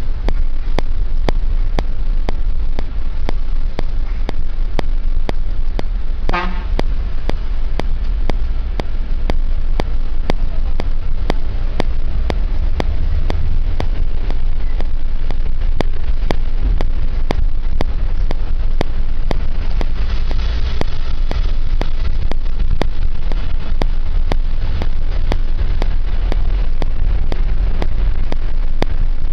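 Steady low road and engine rumble from inside a moving vehicle, with a short horn toot about six seconds in.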